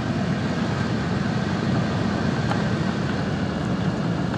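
Beechcraft A36 Bonanza's six-cylinder piston engine and propeller running, heard from inside the cabin as a steady, even drone.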